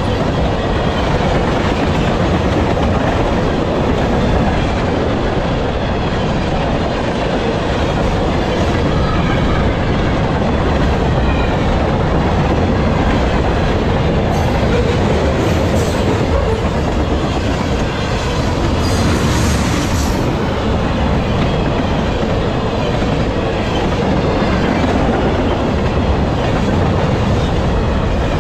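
Freight cars of a passing Canadian Pacific train, tank cars and covered hoppers, rolling by at speed: steel wheels clattering steadily over the rail joints in a loud, continuous rumble.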